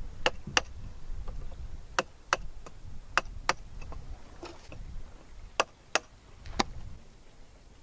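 Sharp plastic knocks, mostly in pairs about a third of a second apart, as a stuck dry-fitted plastic pipe fitting is forced off its pipe. A low rumble sits under the first knocks.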